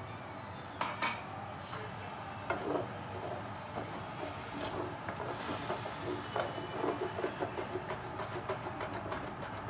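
White wine sizzling in a hot pan of arborio rice, oil and shallots as it cooks off, with a spoon stirring and clicking against the pan, the clicks coming more often in the second half.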